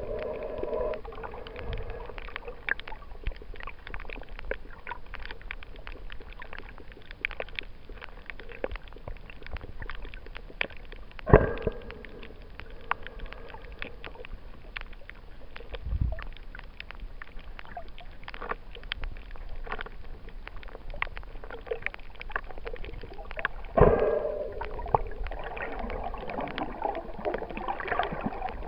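Underwater sound picked up by a camera on a coral reef: a steady crackle of many small clicks, with two louder swells of noise about twelve seconds apart and a dull thud in between.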